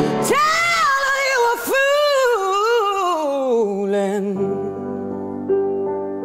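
A woman's strong solo singing voice holds one long phrase that slides up and down in pitch for about four seconds. It gives way to sustained piano chords, with a new chord struck about five and a half seconds in.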